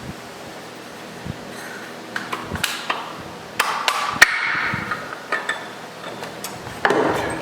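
Sharp metal knocks and clinks from the internal parts of a 47RE automatic transmission being worked apart. The loudest knocks come about four seconds in, and a short scrape comes near the end.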